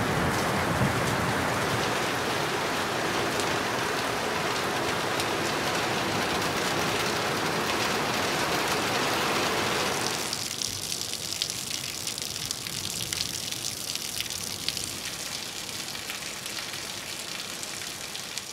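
Heavy rain falling steadily, splashing onto waterlogged ground and water. About halfway through the sound thins and brightens to a lighter splattering, with individual drops ticking.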